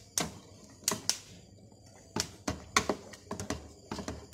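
Spatula knocking and scraping against a pan in about a dozen irregular clicks as thick blended apricot puree is stirred while it cooks down.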